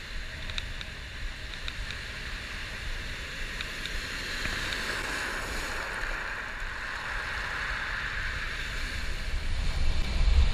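Shallow water washing over pebbles: a hiss that swells and eases, with a few faint ticks early on. A low wind rumble on the microphone rises near the end.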